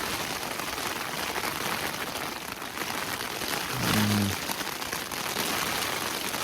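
Heavy rain falling steadily on the flysheet of a small one-person tent, a Terra Nova Helm Compact 1, heard from inside. A short low-pitched sound about four seconds in is the loudest moment.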